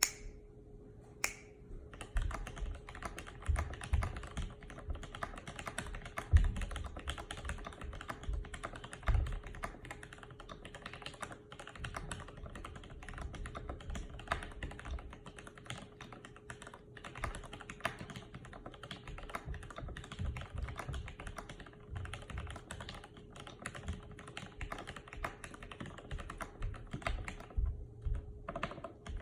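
Fast continuous typing on a Graystudio HB-85 mechanical keyboard with Tealio v2 linear switches, GMK keycaps and Zeal stabilizers, sitting on a bare wooden desk; a rapid patter of keystrokes with heavier, deeper strokes now and then. The typing starts about two seconds in and pauses briefly near the end, over a faint steady hum.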